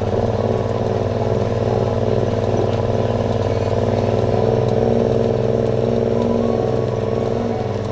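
Side-by-side UTV's engine running steadily while the vehicle drives slowly along a dirt trail.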